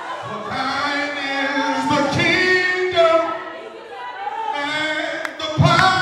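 Gospel worship singing: a male lead voice with a group of singers, sung mostly unaccompanied, with a few brief low knocks.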